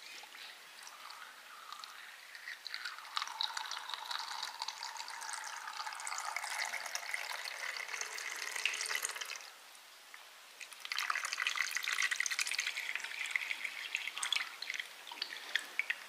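A thin stream of water trickling and splashing into a shallow pool of water in a glass terrarium. It comes in two runs with a short pause about nine and a half seconds in, and ends with a few drips.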